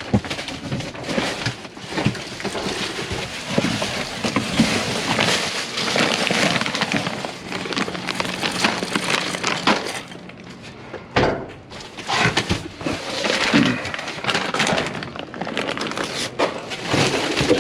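Plastic trash bags and bagged dog food rustling, crinkling and crackling as they are rummaged through and shifted in a dumpster, with a brief lull partway through.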